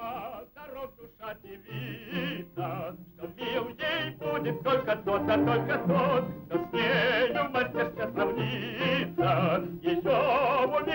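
Operatic-style singing with heavy vibrato over low instrumental accompaniment, in short broken phrases at first and then longer held notes, from the soundtrack of an old animated film.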